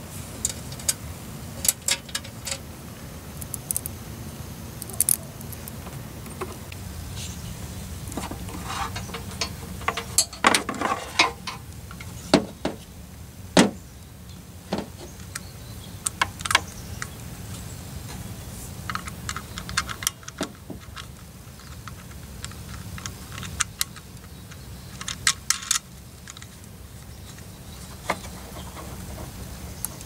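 Irregular light clicks and metallic clinks of handling wiring: crimped ring terminals and a battery disconnect switch knocking together, with a cluster of louder clicks about halfway through. A steady low hum lies underneath.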